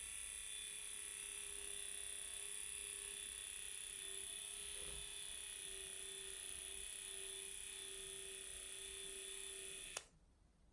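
Small electric mixer whipping cream, its motor running at a steady pitch, then switched off with a click near the end.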